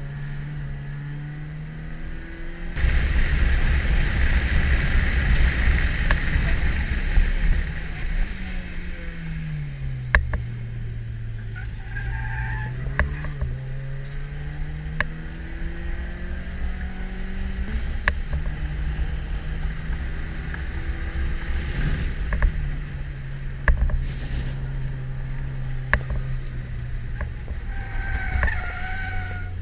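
Mazda2's 1.5-litre four-cylinder heard from inside the cabin, its revs rising and falling as the car is driven hard through corners. A loud rush of tyre and road noise runs from about three seconds in for several seconds. Short tyre squeals come around the middle and again near the end, as the tyres lose grip on the wet track.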